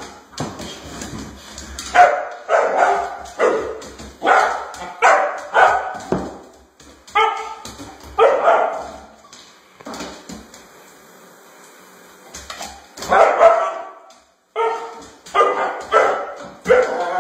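A dog barking repeatedly in short, sharp barks, with a pause of about two seconds in the middle before the barking starts again.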